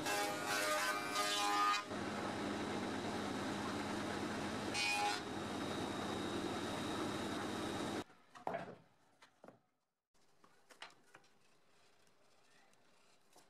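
Spindle moulder (wood shaper) running: the cutter whines with a pitched tone as it cuts the edge profile of a hardwood board for about two seconds, then spins free with a steady whir. The machine sound cuts off about eight seconds in, and a few faint wooden taps and knocks follow as a tenon is pushed into a mortise by hand.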